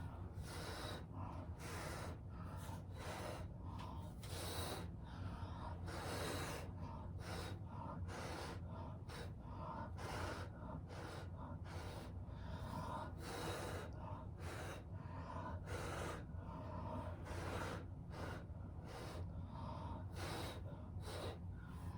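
A person blowing hard, short breaths onto wet acrylic paint to push it across the canvas, over and over in quick irregular puffs.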